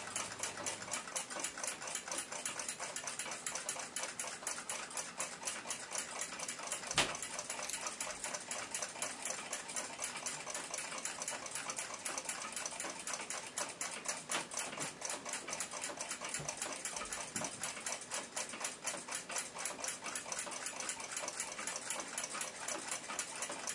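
Junghans A42 chiming clock movement running through its chime sequence: its works make a rapid, even clicking, with one sharper click about seven seconds in.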